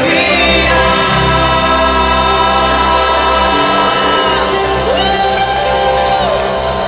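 Indonesian Christian worship song playing as a backing track with its drum part removed: sung vocals over sustained band and keyboard accompaniment, with no drums.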